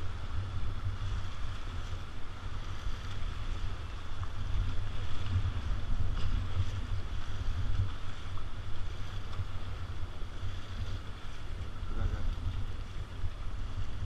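Wind buffeting the microphone in a constant low rumble, over the steady rush of river water.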